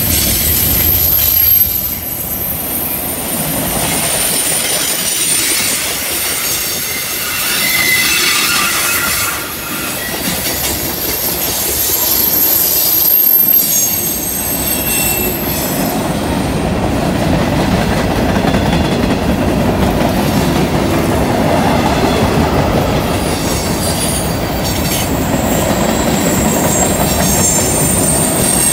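Freight cars rolling past on a curve: a steady rumble and clatter of steel wheels on the rails, with high-pitched flange squeal from the wheels that comes and goes several times.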